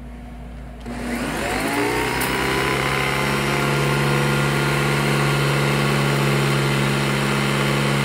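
Hoover Decade 80 upright vacuum cleaner switched on about a second in. Its motor winds up to speed over a couple of seconds, then runs steadily. Under it is the chattery noise of the brushroll, which the owner puts down to bearings worn by carpet freshener powder.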